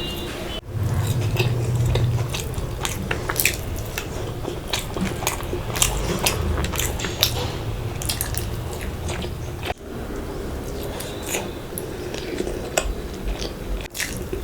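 Close-up eating sounds: a person biting and chewing food, with many short clicks and smacks from the mouth throughout.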